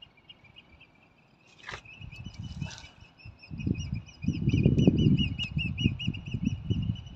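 A bird calling in a fast series of short, high, repeated notes through the second half, over loud irregular low rumbling, with two sharp clicks a second apart before the calls begin.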